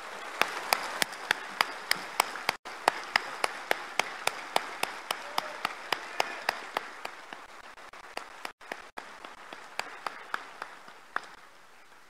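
A large assembly applauding. One nearby person's claps stand out sharply, about three a second, over the general clapping. The applause dies away near the end.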